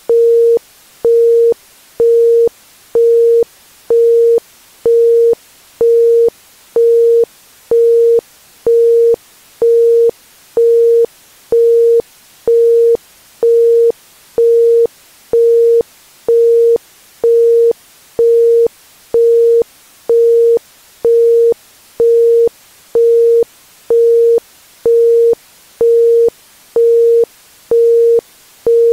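Isochronic tone: a pure 465 Hz tone pulsed evenly on and off about once a second (1.05 Hz), over a faint steady hiss between the pulses.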